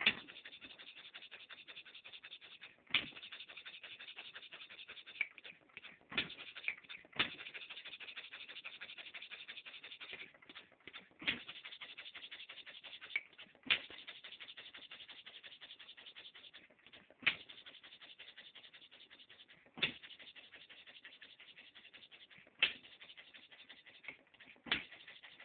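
Small model hit-and-miss side-shaft engine, converted from a Brunner No. 100 air compressor, running: a sharp bang each time it fires, about ten times at uneven intervals of roughly two to four seconds, with a steady light mechanical clatter as it coasts between firings.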